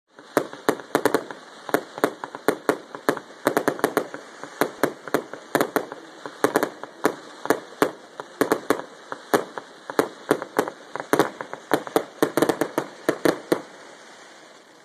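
Fireworks going off in a rapid, irregular string of sharp bangs and pops, several a second, which stop near the end.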